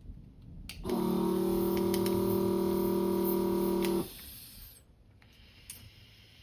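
A small electric motor or pump buzzes steadily at a fixed pitch, starting about a second in and cutting off sharply about three seconds later, with a few light clicks.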